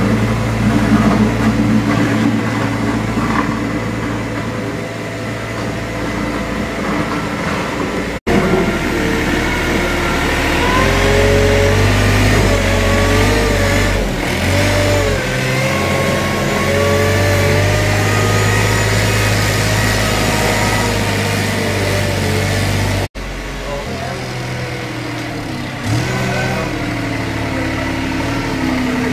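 Diesel engine of a Kramer Allrad 1245 compact telehandler running and revving up and down as the machine drives and works. The sound breaks off sharply twice, about 8 and 23 seconds in.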